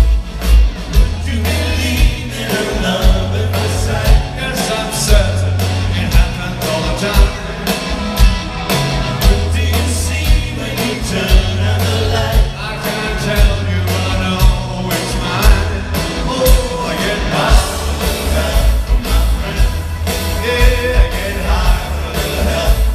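Rock band playing live with a lead singer over a steady beat, heard from the audience seats of a large theater.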